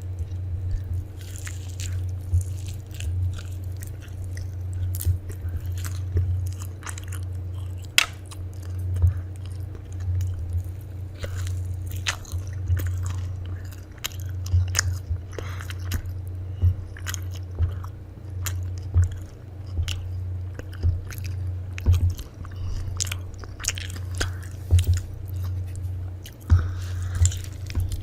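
A person chewing and biting crunchy food, with irregular sharp crunches, over a steady low hum.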